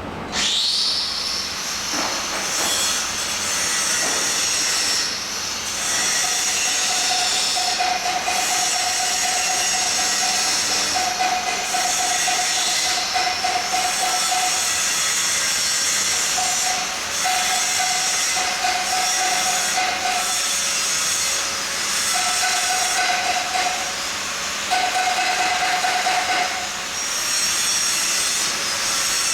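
Electric welding arc burning with a steady hiss that starts abruptly. A mid-pitched whine comes and goes through it.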